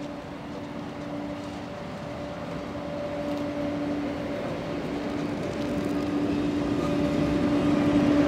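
VR Sr1 electric locomotive arriving at low speed at the head of an InterCity train, its electrical hum steady in pitch and growing louder as it draws near and passes.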